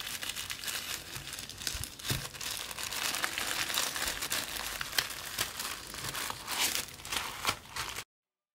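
Thin wrapping paper crinkling and rustling as gloved hands fold and press down a paper-wrapped package, with many small crackles. It cuts off abruptly near the end.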